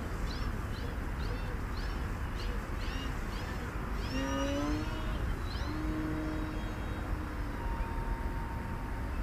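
Wind rumbling on the microphone, with a run of short, high, rising chirps about twice a second over the first few seconds and a few brief thin tones later on.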